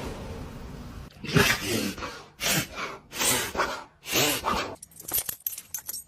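A dog sneezing four times in quick succession, each sneeze a short sharp burst about a second apart. A quick run of light clicking follows near the end.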